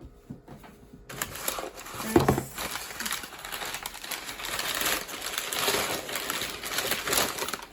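Crinkling and rustling of packaging as it is handled, starting about a second in and running on with many small crackles, with one louder bump about two seconds in.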